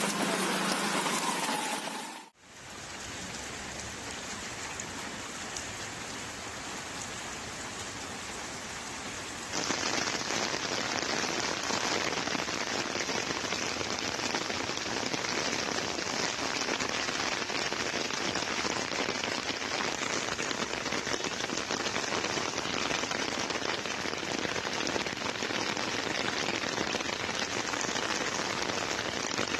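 Heavy rain falling steadily, a dense hiss. The sound breaks off briefly about two seconds in, and it gets louder about ten seconds in.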